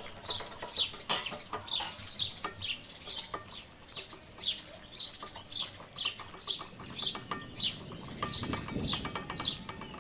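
A small bird chirping over and over in the background: short, high, falling chirps, about two to three a second.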